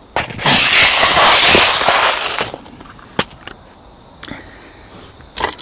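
Camera handling noise: about two seconds of loud rustling and rubbing as the camera is shifted against a fleece blanket, followed by a few light clicks and knocks.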